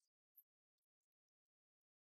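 Near silence, with a faint short high click about half a second in.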